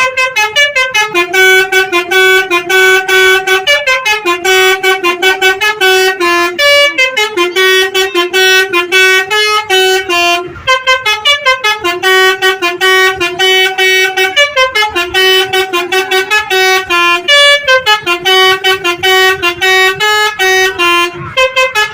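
Tour bus Basuri multi-tone musical horn playing a long melody of quick staccato notes mixed with held tones, with a short break about ten and a half seconds in.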